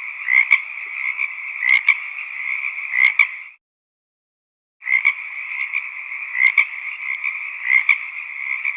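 Chorus of many frogs croaking, a dense continuous din with sharper individual calls standing out every second or so. The sound cuts out completely for about a second partway through, then the chorus resumes.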